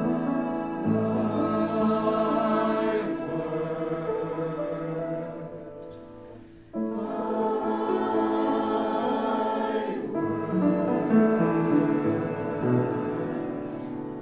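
Music: a choir singing in long held chords. It fades down about six seconds in, then comes back abruptly at full level.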